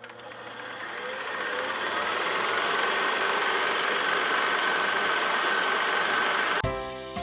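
Film projector sound effect: the running mechanism gives a fast, steady clatter that grows louder over the first two seconds, then holds. It cuts off suddenly near the end as a bright chiming jingle starts.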